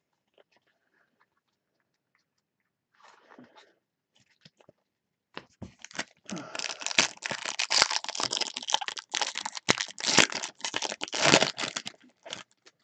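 Crinkly silver foil wrapper of a Topps Chrome Update baseball card pack being crumpled and torn open by gloved fingers. There is a faint rustle about three seconds in. A dense run of crackling and tearing starts about halfway through and lasts several seconds.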